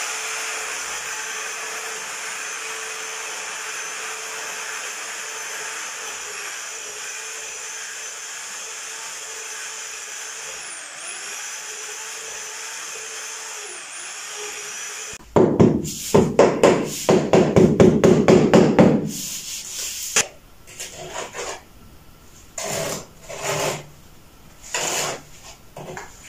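Electric mixer stirring cement mortar, running steadily for about fifteen seconds. It then stops and gives way to louder, irregular scraping strokes, then scattered scrapes and knocks.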